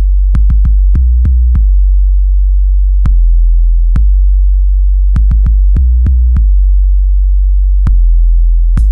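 Extremely bass-boosted electronic music: heavy, sustained deep bass notes that change pitch every second or so, with a sharp click at each change. Near the end, drums and hi-hats come in.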